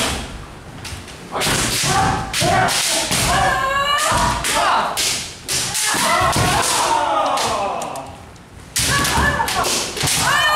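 Kendo sparring: bamboo shinai striking and clacking against armour, bare-foot stamps on the wooden dojo floor, and long, drawn-out kiai shouts that rise and fall in pitch. The shouts and strikes come in flurries, with short lulls about a second in, near the middle and around eight seconds in.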